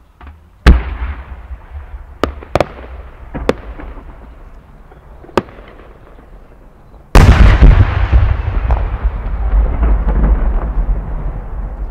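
A 10-inch aerial firework shell: a sharp report as it is fired from its mortar, a few small pops from its rising effects as it climbs, then about seven seconds in the main burst, a very loud boom that rolls and echoes on for several seconds.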